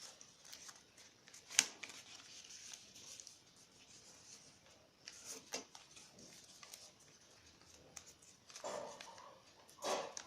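A square sheet of origami paper being folded and creased by hand: faint crinkling and rustling, with a sharp crackle about a second and a half in.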